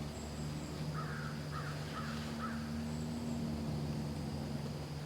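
A bird calls about four times in quick succession, faint, over a steady low hum.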